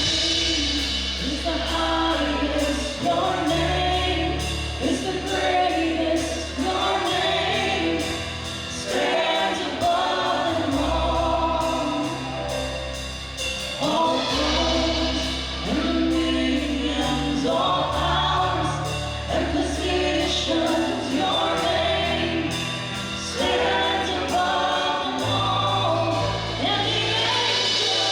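Congregational worship song: a worship band with bass and keys accompanying singers, the voices of the worship team and congregation singing together.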